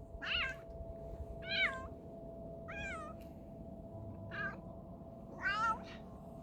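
Domestic cat giving five short, odd-sounding meows about a second apart, some wavering in pitch, with a steady faint tone underneath. The strange voice is put down to the cat being sick.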